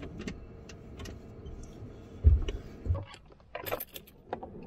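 Keys jangling and clicking at the ignition of a DAF lorry near the end, after a couple of dull thumps in the cab.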